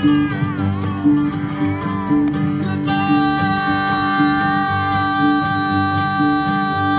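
A bluegrass band playing live, with upright bass and acoustic guitars keeping a steady beat. A bending lead line opens the passage, and a long high note is held from about three seconds in.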